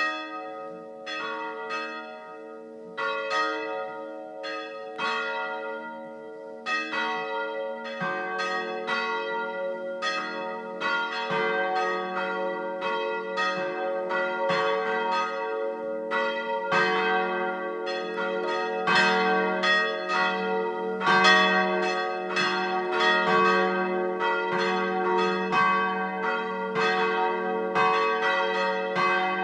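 Church bells pealing: several bells struck one after another, each ringing on under the next. About eight seconds in, deeper bells join and the peal grows fuller and denser.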